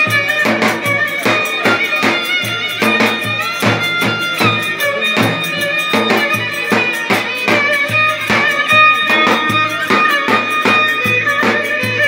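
Lively Turkish Black Sea folk dance tune: a fiddle-like melody over a steady drum beat of about three strokes a second.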